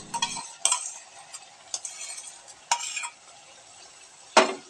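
Beaten sour yogurt going into a steel kadai of hot oil and spices, with a faint sizzle and a spoon scraping and knocking on the metal pan several times, one knock near the end louder than the rest. Background music cuts off just after the start.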